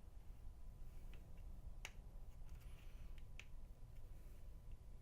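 Faint clicks of a plastic transforming action figure's hinges and joints being moved by hand, with one sharper click just under two seconds in and another about a second and a half later.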